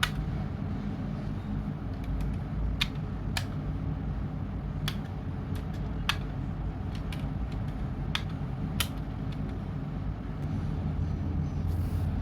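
Plastic building bricks clicking and snapping as they are pressed together by hand, with sharp clicks at irregular intervals over a steady low hum.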